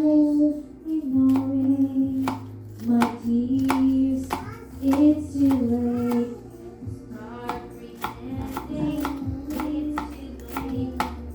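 Music with a singing voice, over a string of sharp knocks.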